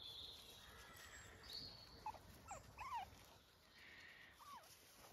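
A running puppy's faint, high-pitched chirping squeaks: a few short calls about two to three seconds in and one more near the end.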